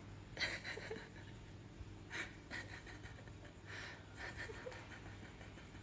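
Faint breathing: a handful of short, soft puffs at irregular intervals over a low steady hum.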